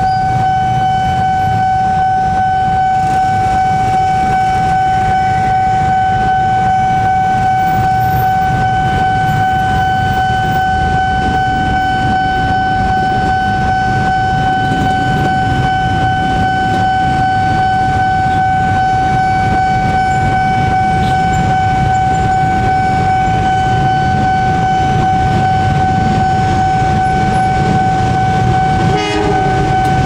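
Level-crossing warning siren sounding one loud, unbroken steady tone, signalling an approaching train, over the low rumble of motorcycle traffic waiting at the barrier. About a second before the end another pitched sound, a horn, cuts in.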